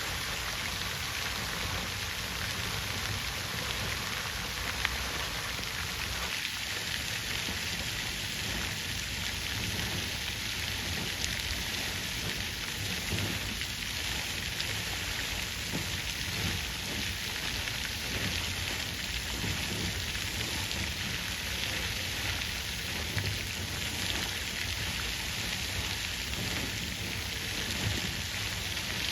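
Water fountain running, water falling and splashing in a steady, even rush with small flickers of splashes throughout.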